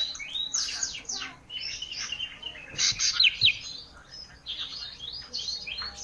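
A cage songbird known to Indonesian keepers as the 'ranting' singing gacor: a fast, unbroken run of varied chirps, trills and short down-slurred whistles, the kind of busy filler (isian) song used as a training song for cage birds. The loudest, sharpest notes come about halfway through.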